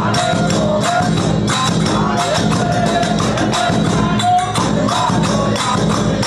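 Live Indian folk pad-song accompaniment playing with no voice: jingling percussion keeps a quick, steady beat under a short, wavering melody and a steady low drone.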